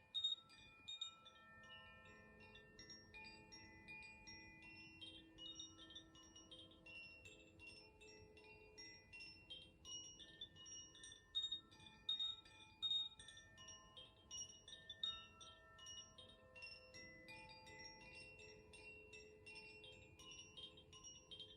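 Koshi 'Aria' chime ringing softly, its tuned metal rods struck by the clapper in a steady, irregular stream of overlapping, sustained notes.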